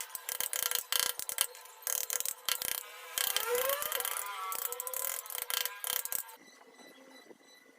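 Hand tools working wood: rapid clicking and scraping with a few short squeaks, stopping about six seconds in.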